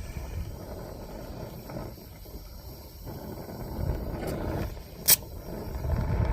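Brazing torch flame burning steadily with a low rumbling roar as it heats a copper pipe joint, with one sharp click about five seconds in.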